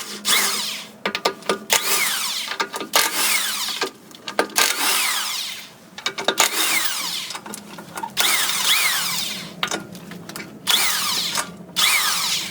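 Handheld power tool run in about seven bursts of one to two seconds each, with short pauses between; most bursts end as the motor winds down in falling pitch.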